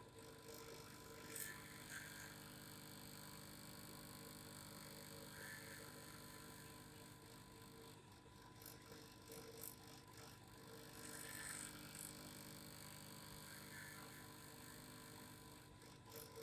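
Faint, steady mechanical vibration hum made of several constant tones, with soft swells coming and going every couple of seconds.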